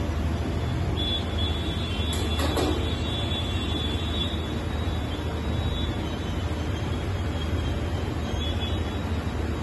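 Steady background noise: a low hum under an even hiss, with a faint high whine through most of it and a brief scrape about two seconds in.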